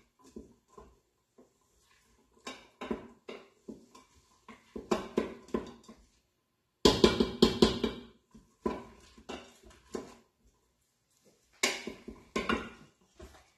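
Wooden spoon stirring chopped vegetables in the stainless steel inner pot of an Instant Pot, scraping and knocking in about five short bursts of quick strokes with brief pauses between.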